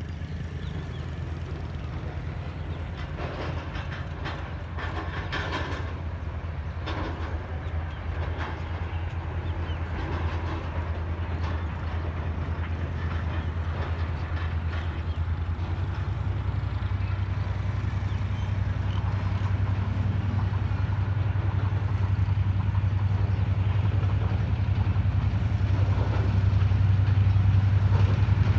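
GMCU-15 diesel-electric locomotive approaching along the track, its low engine drone growing steadily louder, with the note stepping up and strengthening about halfway through.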